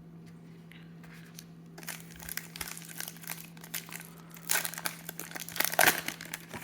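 A trading-card pack wrapper crinkling and tearing as it is handled and pulled open, starting about two seconds in and loudest near the end.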